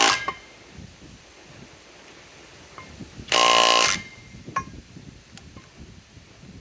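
Kobalt subcompact cordless impact wrench hammering on a trailer lug nut in short bursts: one burst ends as the sound begins, and another of under a second comes a little after three seconds in. A few light clicks fall between the bursts. The nut has not been broken loose in over 10 years.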